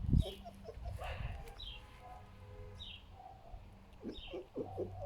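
Foxes making short low grunts, a pig-like sound, with a small bird's short falling chirp repeating about every second and a half in the background.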